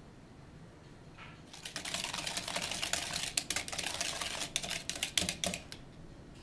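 A utensil stirring thick gochujang sauce in a plastic mixing bowl: rapid clicking and scraping against the bowl, starting about a second and a half in and lasting about four seconds.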